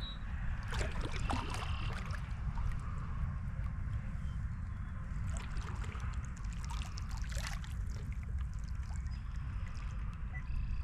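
Water splashing and trickling around a kayak in short irregular spells, over a steady low rumble.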